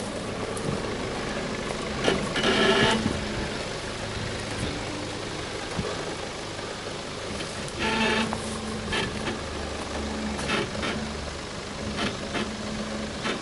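Nissan Patrol 4x4's engine running at low revs as it crawls slowly over a steep dirt mound, with a couple of brief louder patches about two and a half and eight seconds in.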